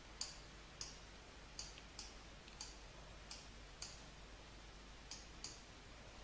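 Faint single clicks of a computer mouse, about ten of them spaced irregularly half a second to a second apart.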